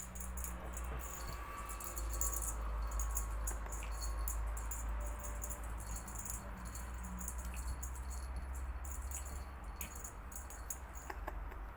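Light, irregular rattling or jingling: many quick little clicks over a steady low hum.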